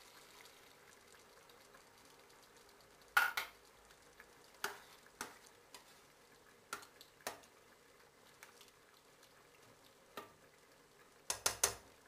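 Metal spoon stirring chicken, rice and vegetables in a stainless steel saucepan, clinking against the pot about ten times at uneven intervals, with a quick cluster of clinks near the end, over a faint steady hiss.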